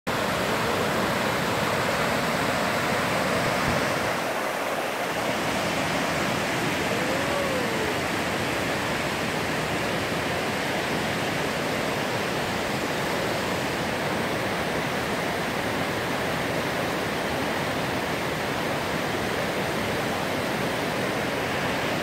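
River water rushing steadily over rocky rapids and small cascades, a continuous full rush that eases slightly about four seconds in. A single short whistled note rises and falls about seven seconds in.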